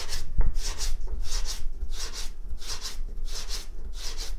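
A hand rubbing and rolling small pieces of rice-flour dough on a floured wooden board: quick, rhythmic back-and-forth scraping strokes, about two to three a second. A soft knock on the board comes about half a second in.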